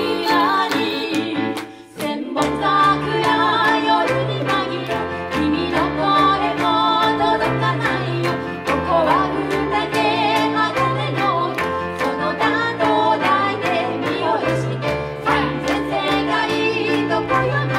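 Three women singing a pop song into microphones over music with a steady beat and bass line. The music dips briefly about two seconds in, then the beat comes back.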